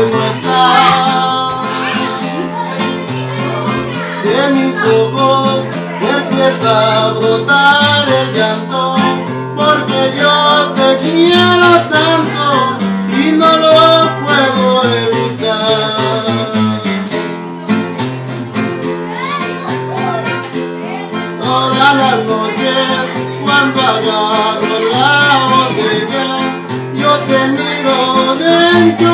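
A man singing while playing an acoustic guitar, with alternating bass notes under the chords.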